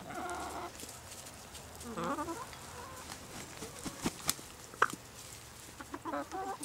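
Pet hens clucking and giving short, wavering calls while pecking grapes from a hand, with a few sharp clicks between four and five seconds in.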